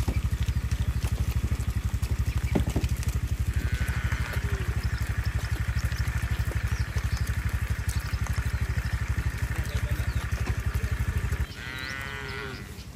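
Cattle mooing: one long moo starting about three seconds in and another near the end. Under it runs a steady, fast low pulsing, like a small engine running, which cuts off abruptly shortly before the second moo.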